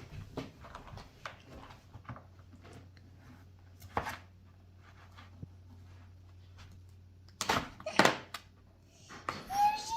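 Light clicks and taps of small plastic toys and sand-digging tools being handled, with a couple of louder knocks near the end.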